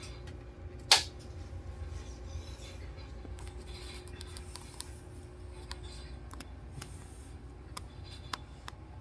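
Steady low hum of machinery in a ship's switchboard room, with scattered light clicks. One sharp, much louder click comes about a second in.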